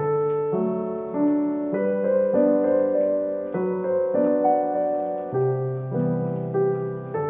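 Background piano music: a melody of notes changing about every half second over lower held bass notes.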